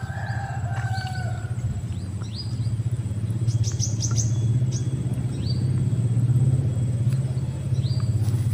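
An engine running steadily with a low rumble, the level swelling a little around the middle. Short, high bird chirps come several times over it.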